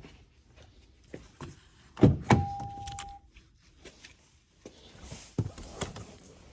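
A 2024 Toyota Tacoma Trailhunter's door opens with a loud thunk about two seconds in. Right after it a single electronic chime tone sounds for about a second, followed by a few light clicks and knocks.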